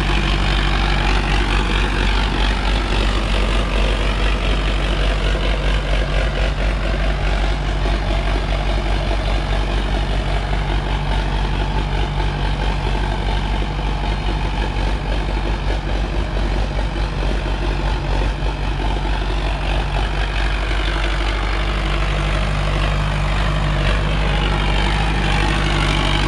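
Sonalika DI-750 III tractor's diesel engine running steadily under load, pulling an 8x8 disc harrow. Its low drone weakens somewhat in the middle and grows stronger again near the end.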